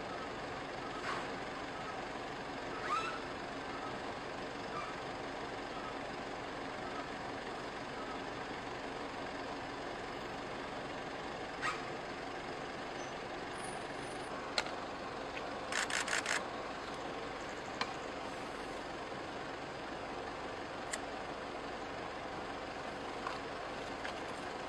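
Steady hum of vehicle engines idling on the roadside, broken by a few sharp clicks and knocks and by a quick run of four short sharp pulses about two-thirds of the way through.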